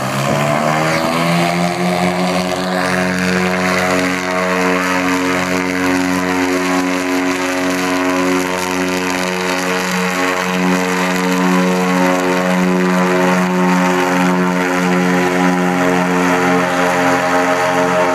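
Goodyear blimp's twin piston engines and propellers revving up to takeoff power in the first second or two, then running steadily at high power as the blimp lifts off and climbs.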